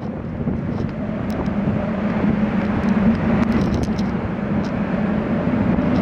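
Typhoon wind and rain rushing over the microphone, a loud steady noise with a low rumble underneath and a few small clicks.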